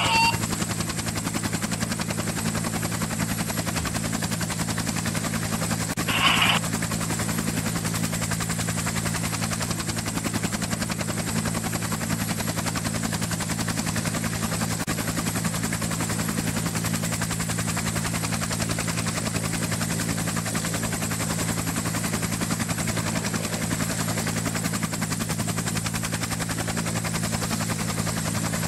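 Steady engine drone with a fast, even chop, like a helicopter's rotor. A brief higher-pitched burst cuts in about six seconds in.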